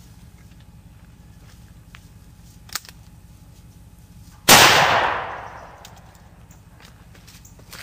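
A single shot from a .44 Magnum Ruger Super Redhawk revolver: one sharp crack about four and a half seconds in, with a long echoing tail that dies away over about a second and a half. A short click comes a couple of seconds before it.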